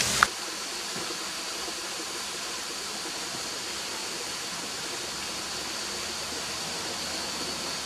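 Steady rushing of a rainforest creek and waterfall, with a faint, steady high-pitched tone above it. A brief click and a louder rush of the falls cut off about a quarter second in.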